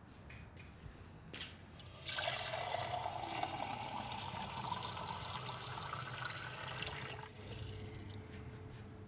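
A few small knocks, then water from a tap runs into a drinking glass for about five seconds, filling it, before the flow stops.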